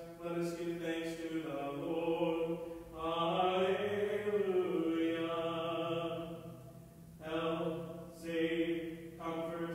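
A man's voice chanting a liturgical prayer on long held notes. The pitch rises and falls in the middle, and there is a short break about seven seconds in.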